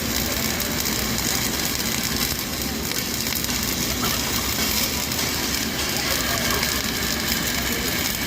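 Flux-cored arc welding of a fillet joint with 1.2 mm wire under argon/CO2 shielding gas: the arc crackles steadily and without a break.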